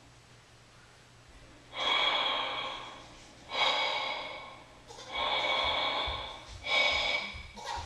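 Heavy breathing: four loud breaths about a second and a half apart, each starting sharply and fading over about a second.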